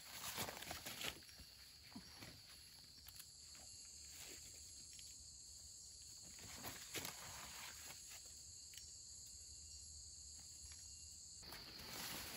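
Faint, steady high-pitched drone of forest insects, with scattered rustling and crackling of footsteps and handling in leaf litter.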